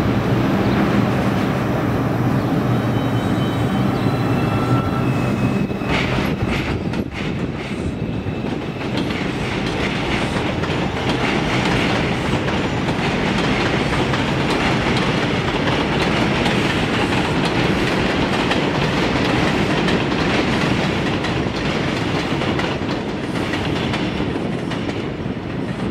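New York City Subway R142 train running along elevated steel track: steady wheel-and-rail noise with clacking over the rail joints. A high whine stepping in pitch is heard during the first few seconds.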